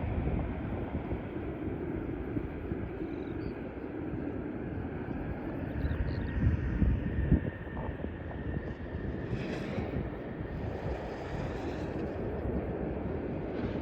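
Boeing 737-800 airliner's jet noise: a low, fluctuating rumble as it flies past, swelling a little louder about six to seven seconds in.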